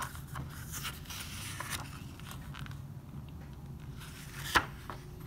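Paper handling of a glossy album photo book: faint rustles and small taps of fingers on the pages over a low steady hum, with one sharp snap about four and a half seconds in.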